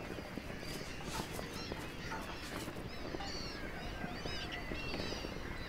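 Outdoor ambience of many birds chirping, with short rapid calls scattered throughout over a steady background rush.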